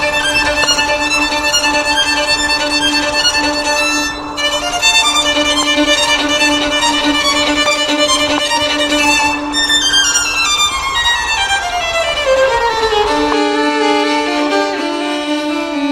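Background music: a melody of long held string-like notes, with a long downward glide in pitch about ten seconds in.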